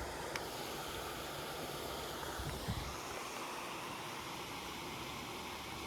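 Steady rushing noise of water flowing through a spillway, mixed with wind on the microphone, with a brief soft thump about two and a half seconds in.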